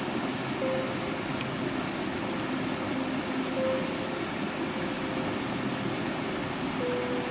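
Steady rushing water noise, with faint held notes of soft instrumental music underneath.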